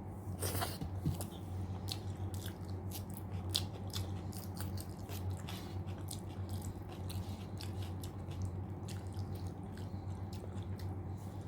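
Close-miked chewing of a mouthful of food: wet smacks and mouth clicks, several a second, with a short breathy slurp about half a second in. A steady low hum runs underneath.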